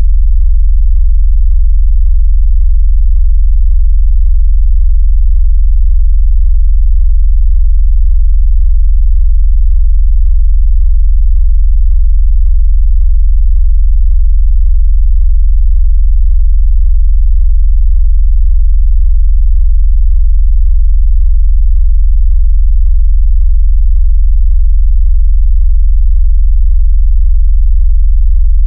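Electronically generated very deep bass tone, loud and unchanging, of the kind made to shake a phone's speaker as a vibration sound or speaker water-ejection tone.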